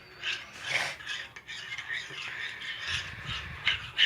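A spoon stirring and scraping around a bowl of school glue and dish soap, mixing the slime base, with small clinks of the spoon against the bowl.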